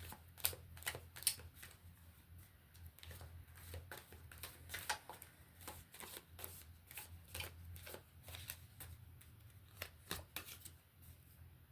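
A deck of reading cards being shuffled by hand: a run of soft, irregular card flicks and clicks.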